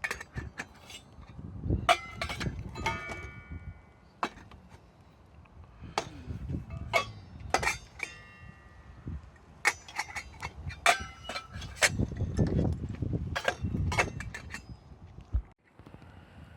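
Hard clinks and clatter of camp cookware and utensils being handled, several strikes ringing briefly, with low rumbling handling noise in between.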